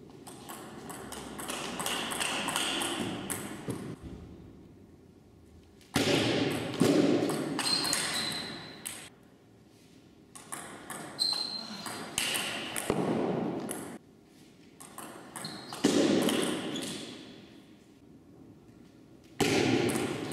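Table tennis rallies: the celluloid-type ball clicks back and forth off bats and table in runs of sharp pings. Several times a louder burst of noise breaks in and fades as a point ends.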